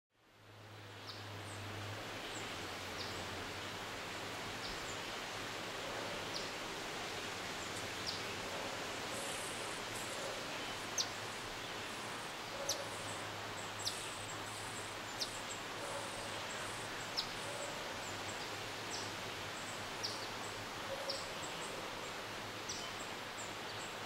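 Short, high bird chips repeating about every one to two seconds over a steady background hiss.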